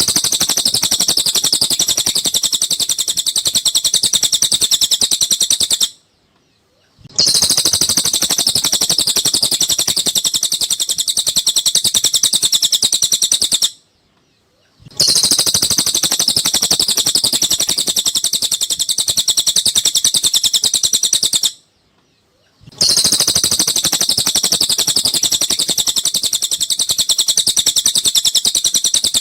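Cililin songbird chirping in rapid, high-pitched runs: four near-identical bouts of about seven seconds each, separated by pauses of about a second, as in a looped song recording used to tutor cage birds.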